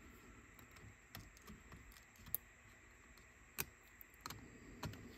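A few faint, sparse clicks and taps of small tools and parts being handled while a Sony Walkman WM-EX999 cassette player is taken apart. The sharpest clicks come about two and a half and three and a half seconds in.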